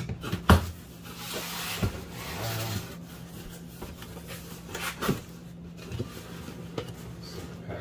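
Cardboard shipping box being opened by hand: flaps pushed back and slapped down, with a sharp knock about half a second in, a couple of seconds of cardboard rustling and sliding, and a few more taps and knocks as the box inside is handled.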